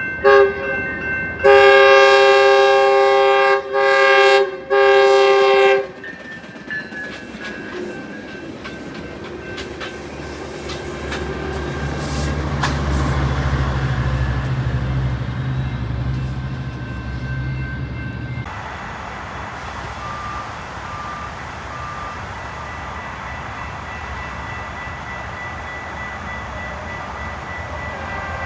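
Locomotive horn sounding a chord in several blasts, the longest about two seconds. Then a train rolling past with a low rumble and wheel clicks over the rail joints. After about 18 seconds the sound changes abruptly to a steadier rumble with a faint repeating ding, like a crossing bell.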